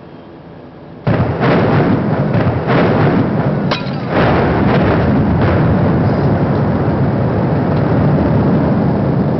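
Building implosion bringing down two tall towers: a sudden string of sharp blasts from the demolition charges starting about a second in, running into a continuous heavy rumble of the collapse that eases slightly near the end.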